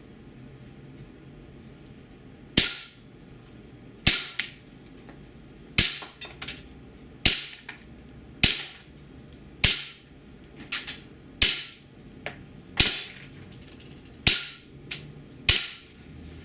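KWC Desert Eagle .50AE gas-blowback airsoft pistol fired ten times on semi-auto, each shot a sharp crack with the blowback of its metal slide. The shots come about every one to one and a half seconds, and softer cracks follow several of them.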